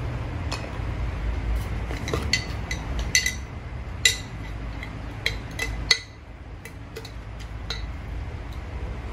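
Eating utensils clinking against a bowl while noodles are eaten: a dozen or so light, ringing clinks at uneven intervals over a low steady rumble that falls away about six seconds in.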